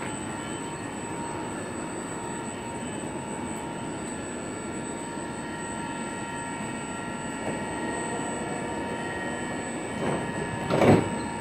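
Alstom Coradia Nordic X60 electric commuter train standing at the platform, its onboard equipment giving a steady hum with a few constant tones. A short loud burst of noise comes near the end.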